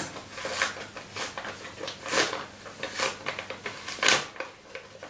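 Paper envelope being opened by hand: a series of short paper rustles and crinkles, the loudest about two seconds in and again about four seconds in.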